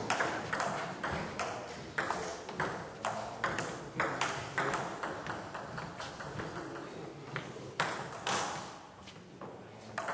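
Table tennis ball clicking off bats and the table in a fast rally, about three sharp clicks a second, with a brief lull near the end before the clicks start again.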